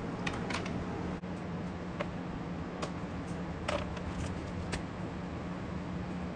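Handling noises at a workbench: scattered light clicks and soft rustles as loose wire and a plastic bag of small wiring parts are picked up and fingered, over a steady low hum.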